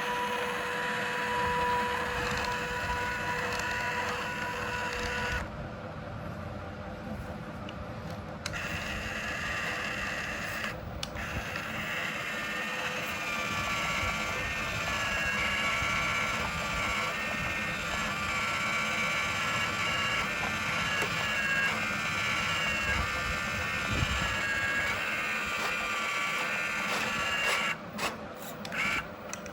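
Small electric motors and gearboxes of radio-controlled model trucks whining, the pitch wavering up and down with the throttle. The sound cuts out briefly several times near the end.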